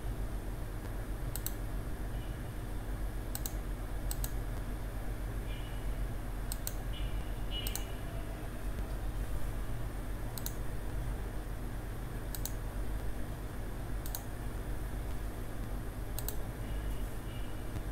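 Computer mouse clicking: about a dozen single, sharp clicks at irregular intervals, a second or two apart, over a steady low hum.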